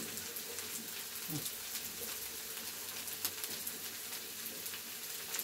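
Chopped green peppers and onion sizzling in hot oil in a sac pan: a steady hiss with scattered small crackles.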